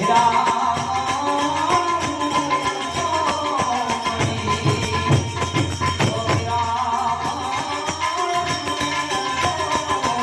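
Gujarati santvani devotional folk music: a melody line over steady percussion.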